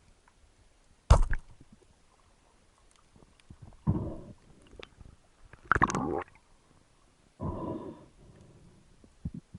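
John Dory fish making four short grunting sounds, each under a second long and a couple of seconds apart.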